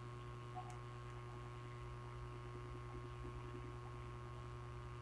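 Steady low electrical mains hum, faint and unchanging.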